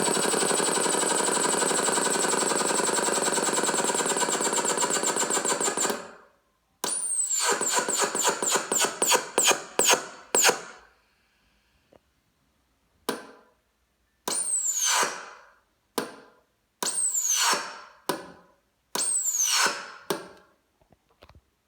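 Machine making a rapid, even rattle for about six seconds, then stopping and starting in short bursts, several of which open with a high whine falling in pitch; a strange noise from the device.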